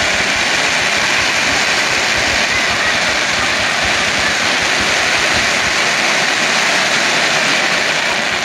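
Fireworks crackling densely and without a break, a steady loud rushing crackle like a waterfall.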